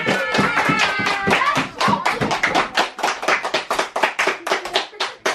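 A small group clapping by hand, a quick, uneven patter of claps, with voices cheering over the first second or two.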